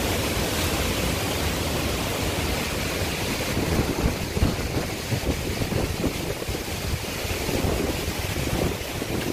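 Strong hurricane wind rushing steadily. From about the middle on it buffets the microphone in irregular low rumbles.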